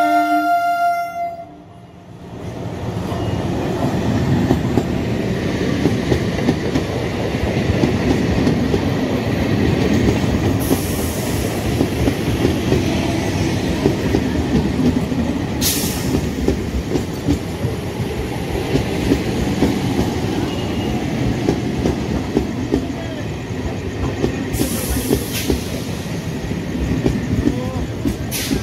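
EMU local train sounding its horn as it comes in, the horn cutting off about a second and a half in, then the electric train running past along the platform: a steady rumble with the rapid clickety-clack of wheels over rail joints and a few short high hisses.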